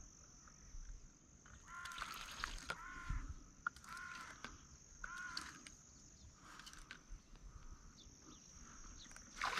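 A crow cawing, a series of about six short, arched caws roughly a second apart, faint against a steady thin high-pitched whine.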